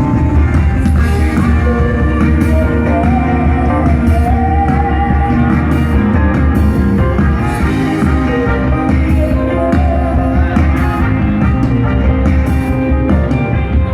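Live band music with guitar and heavy bass, and a singer's voice coming in with long wavering sung lines twice.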